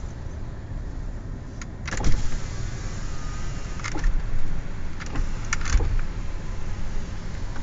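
Steady low rumble inside a pickup truck's cab, with a handful of sharp knocks on the body, spaced a second or more apart, the first one about two seconds in.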